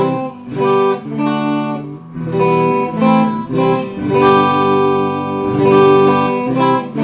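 Squier Starcaster semi-hollow-body electric guitar played slowly. Picked chords and notes are struck every half second to a second, each left ringing.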